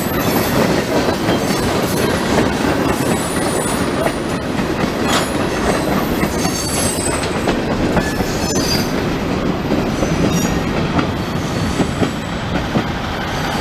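Freight train of empty tank cars and covered hoppers rolling past: steel wheels clattering over the rail joints with scattered knocks and thin, high wheel squeals.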